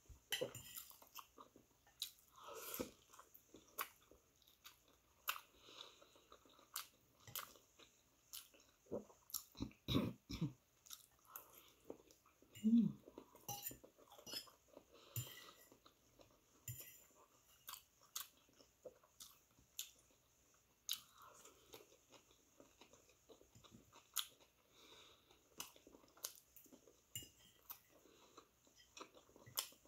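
Close-up chewing and biting sounds of a person eating stir-fried pancit canton noodles with vegetables, with short clicks and taps of a metal fork against a ceramic plate between bites.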